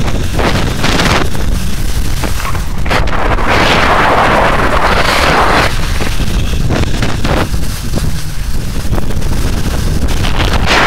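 Wind buffeting the microphone of a camera carried by a moving skier, mixed with skis hissing and scraping through soft, slushy spring snow. The hiss swells loudest from about four to six seconds in.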